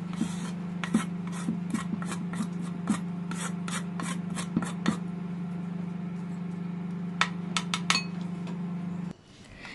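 Chopped chilies, garlic and coriander root being scraped off a wooden chopping board into a ceramic bowl: repeated rasping scrapes and light taps, about three a second, then a pause and a quick cluster near the end. A steady low hum runs underneath and stops shortly before the end.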